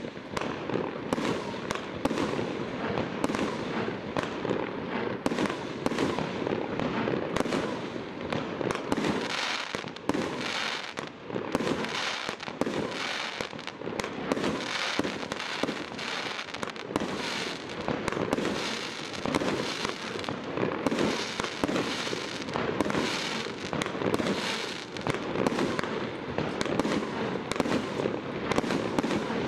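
A 49-shot single-ignition firework cake (Dream Fireworks Galaxy) firing shot after shot, about one a second, each a sharp bang with a short crackling tail as it bursts.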